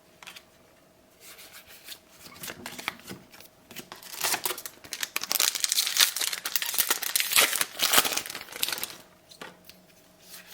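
A trading card booster pack's wrapper being torn open and crinkled, with the cards handled inside. It starts about a second in, is loudest in the middle and dies down near the end.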